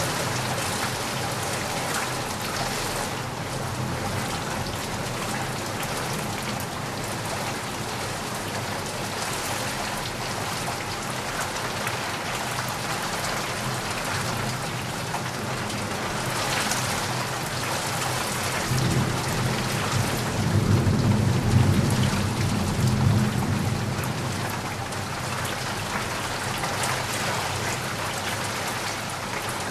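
Heavy rain falling steadily, with a low rumble of thunder rising and fading about two-thirds of the way through.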